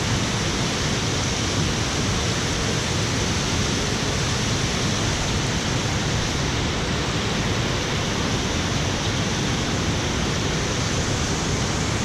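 A FlowRider surf simulator's thin sheet of pumped water rushing steadily up its sloped ride surface, an unbroken dense rush of water.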